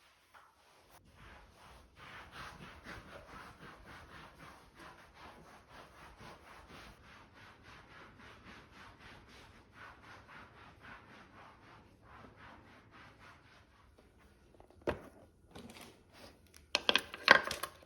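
Knife chopping on a wooden cutting board in a steady rhythm of about five strokes a second. This is followed by a single knock and a short, louder clatter near the end.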